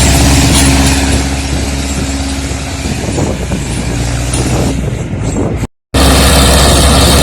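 Zetor tractor's diesel engine running hard under load while pulling a cultivator set deep, a strong steady low engine note. Its tone shifts about three seconds in, and the sound cuts out for an instant near the end before returning just as loud.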